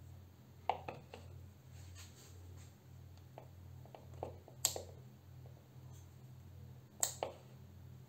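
Sharp clicks and light knocks of a homemade shower-head lamp's metal head being swivelled and tilted by hand, a few near the start, the loudest about halfway through and a pair near the end, over a steady low hum.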